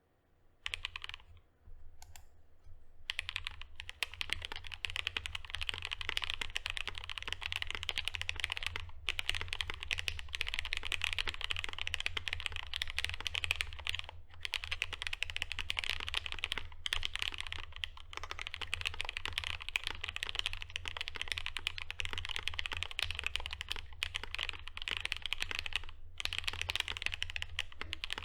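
Continuous fast typing on a custom QXP mechanical keyboard with lubed and filmed FFF switches, a polycarbonate half plate and GMK keycaps: a dense run of keystroke clacks with a few brief pauses. A low steady hum runs underneath.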